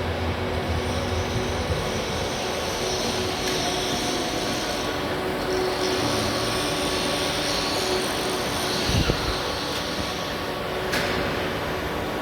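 Morara grinding machine running with a steady, dense mechanical noise and several steady hum tones, with a short thump near the end.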